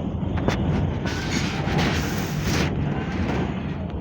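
Mercedes-Benz OF-1519 Bluetec 5 bus's four-cylinder diesel engine running steadily, with a few sharp clicks near the start and a hiss lasting about a second and a half starting about a second in.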